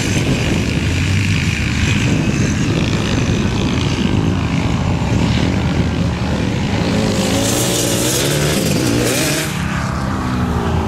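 Lifted Dodge Ram pickup's engine running as it drives on sand, the revs rising and falling in the second half and dropping away near the end.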